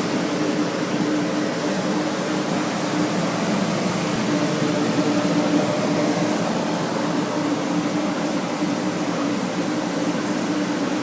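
Drying fans running steadily to dry out a flooded basement, a constant loud rushing whoosh with a low hum underneath.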